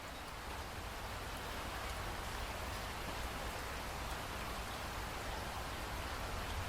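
Steady rain falling, an even hiss of many drops with a low rumble underneath.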